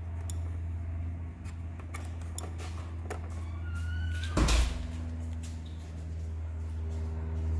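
Small handling knocks and clicks as an Ethernet cable is plugged in and tucked into an open solar inverter's enclosure, with one louder thump about four and a half seconds in, over a steady low hum.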